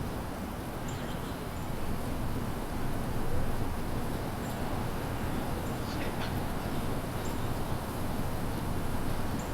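Small birds giving short, high chips every couple of seconds, with a few quick falling notes about six seconds in, over a steady low rumble of outdoor background noise.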